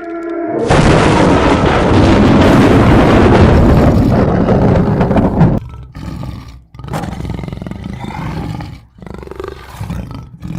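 Loud roaring sound effect that starts suddenly about a second in and holds for about five seconds, then breaks into lower, choppier rumbling with brief gaps.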